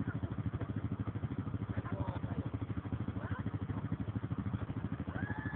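Quad (ATV) engine running steadily, with an even, fast pulsing beat.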